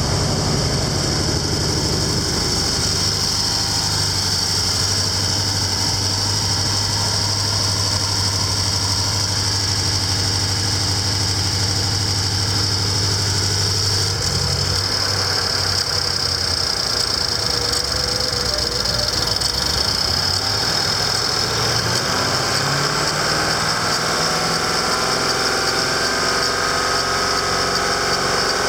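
2014 BMW X6M's 4.4-litre twin-turbo V8 running at idle, its low engine note shifting to a lower, rougher pattern about halfway through, with a steady high hiss over it.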